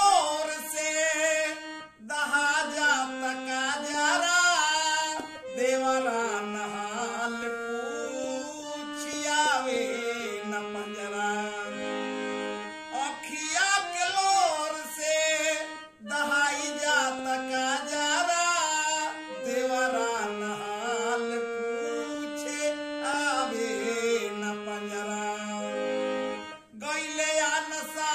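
A man singing a Bhojpuri folk song in full voice, accompanying himself on a harmonium whose held reed notes step along with the melody, with short breaks between lines.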